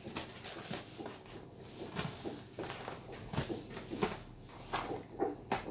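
Small cardboard boxes being handled and set down one by one in a stack on a kitchen counter: a string of irregular short taps and knocks with some rustling of packaging.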